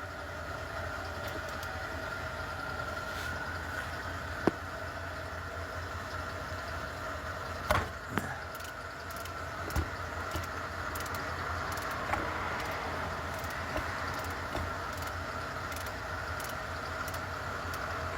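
Steady hum of an idling vehicle engine, with a few scattered sharp metal clicks and knocks of a ratchet and socket working on a 12 mm bracket bolt.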